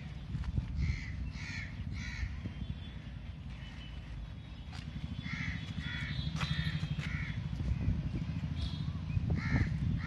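Crows cawing: a series of three short harsh caws, then four more a few seconds later and two near the end, over a steady low rumble.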